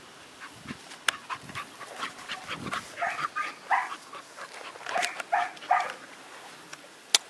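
A dog close to the microphone making a run of short, quick sounds, about eight of them over three seconds starting a few seconds in, with scattered light clicks and rustles around them.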